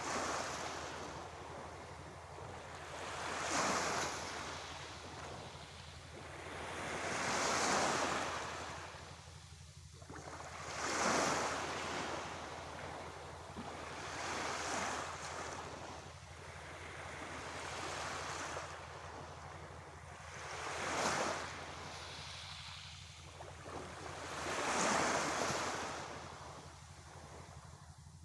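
Sea waves washing in and breaking, each wave swelling up and falling away about every three to four seconds over a steady low rumble.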